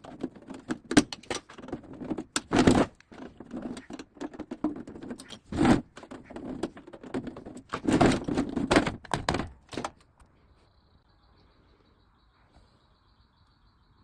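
Irregular knocks, clicks and clatter of hard objects being handled, with a few heavier thuds, stopping about ten seconds in. A faint steady high whine remains after that.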